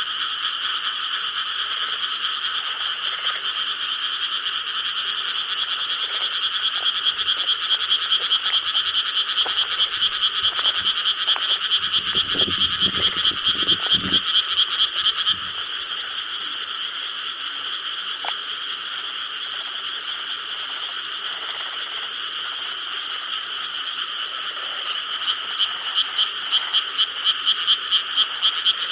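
A chorus of frogs calling in rice paddies: a dense, steady trilling din with a nearer frog's fast pulsed calls swelling in about six seconds in, breaking off suddenly about halfway through and starting again near the end.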